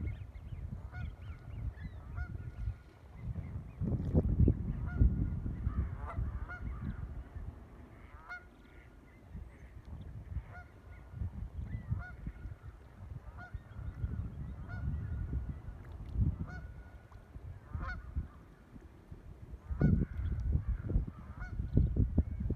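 Short waterbird calls repeated every second or so, over gusts of wind buffeting the microphone that are strongest about four seconds in and near the end.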